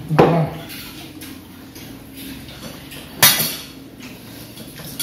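Metal spoons knocking against ceramic plates and bowls during a meal: two sharp clinks about three seconds apart, one just after the start and one about three seconds in.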